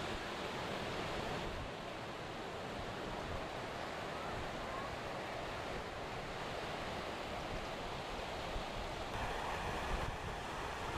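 Sea surf breaking and washing up a sandy beach, a steady rushing, with wind rumbling on the microphone. The surf grows a little louder near the end.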